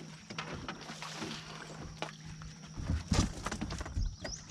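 A boat's motor hums steadily at low pitch under scattered knocks and clicks of handling in the boat, with a few louder thumps about three seconds in.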